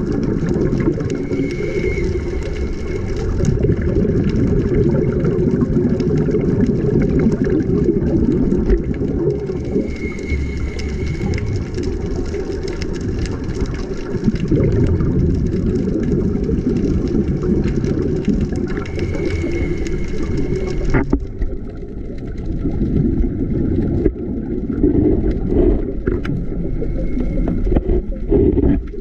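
Underwater sound picked up through a GoPro housing on a scuba dive: a steady low rumble of water and exhaled bubbles, with a brief high hiss from the breathing regulator about every nine seconds. The higher sound drops away abruptly about three-quarters of the way through.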